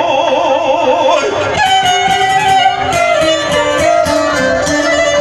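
Live amplified folk music, an instrumental passage: a long-necked lute picked in quick notes together with a violin. A held wavering note gives way to the quick picked run about a second in.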